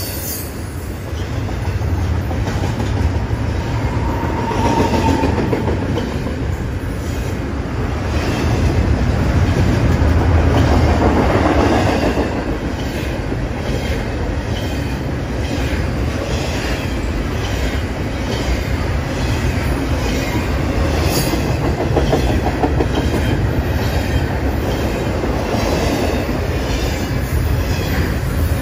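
Double-stack container freight train's well cars rolling past close by: a steady rumble of steel wheels on rail, with repeated clicks as the wheels pass over the track. A faint, brief squeal about four seconds in.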